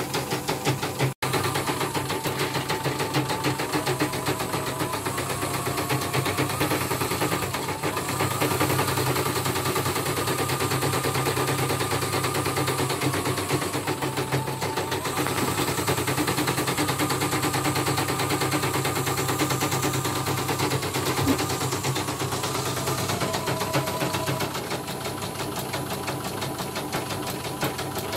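Computerised embroidery machine stitching out a design: the needle mechanism running at speed in a steady, rapid clicking rhythm as the hoop moves.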